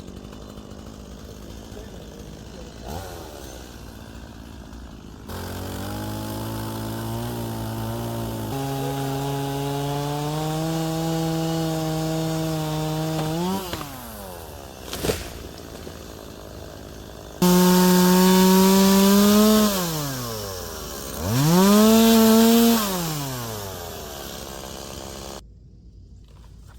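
Gas chainsaw engine running at part throttle with its pitch creeping up, then revved hard twice in the second half, each rev falling back toward idle. A single sharp click falls between the two halves, and the engine cuts out about a second before the end.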